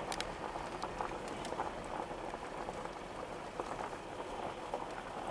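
Snow chains on a car's tyres clicking and clinking irregularly as it drives, over an even hiss of road noise.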